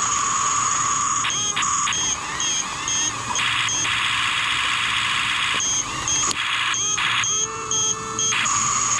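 Scale RC bulldozer's electric drive motors and gearboxes whining high and steady. The whine breaks off and restarts several times, and there is a denser, buzzier stretch about halfway through.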